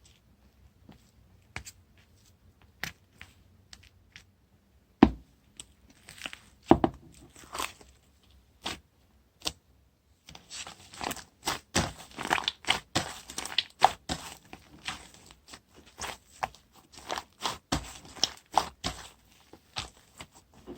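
Hands working slime. For the first half there are sparse, sharp clicks and snaps. From about ten seconds in comes a dense, irregular run of crackling pops and squelches.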